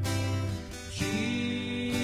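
Acoustic guitar strummed slowly under a worship song; about halfway a singing voice slides up into a long held note over the chords.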